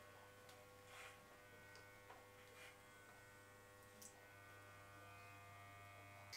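Faint, steady hum of electric hair clippers running without cutting, with a few short, soft brushing sounds of a comb drawn through hair.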